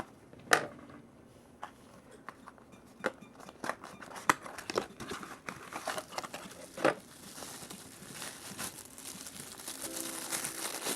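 Plastic packaging crinkling and being torn open, with scattered sharp snaps and clicks, then more continuous rustling over the last few seconds.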